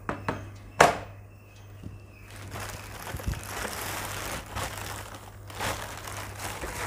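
Thin plastic carrier bag rustling and crinkling as hands rummage inside it, after two sharp knocks about a second apart near the start as a box is set down on the table.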